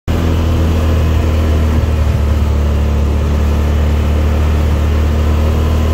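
Polaris RZR side-by-side's engine running at a steady speed while cruising, a constant low hum that holds the same pitch throughout.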